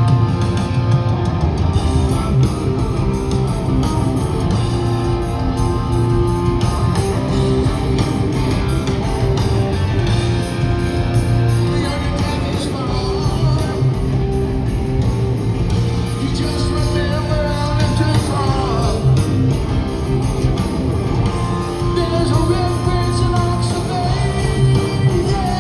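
Live rock band playing: electric guitar over bass and drums, with a singing voice. About two-thirds of the way in, notes slide in pitch.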